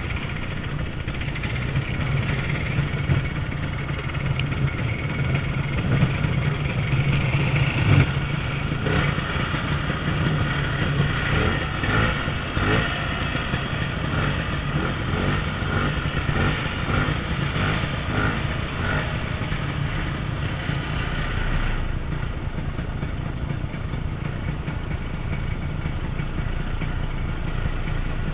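Snowmobile engine running steadily as the sled rides through deep snow, with some clatter over the engine note.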